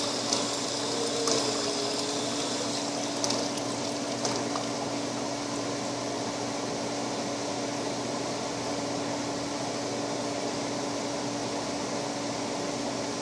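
Steady machine hum and hiss with a constant low tone, like an appliance or air-handling unit running, with a few light clicks in the first four seconds.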